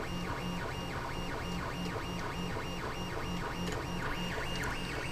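Stepper motors of a 2020 Prusa i3 3D printer whining in a steady rhythm, rising and falling about three times a second as the print head sweeps back and forth mid-print.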